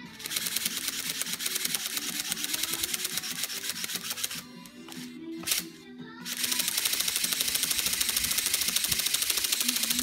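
Remote-control flapping-wing bird's motor and gearbox beating its wings, a fast, even clatter. It stops for about two seconds near the middle, then starts again louder. Background music plays underneath.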